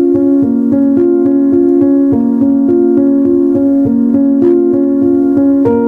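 Background piano music: a steady stream of repeated notes over held chords.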